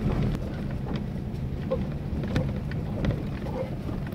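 Vehicle engine and drivetrain running at low speed on a rough dirt track, heard from inside the cab, with scattered clicks and knocks as the vehicle jolts over the ruts.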